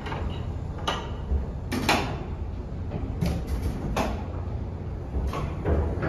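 1929 Otis freight elevator with AC geared traction drive, its car travelling up the hoistway: a steady low rumble with a series of sharp metal clanks and rattles, the loudest about two seconds in.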